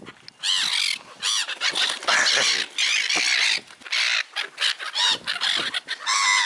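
A flock of birds calling harshly, many overlapping squawks in quick succession as they crowd in over food.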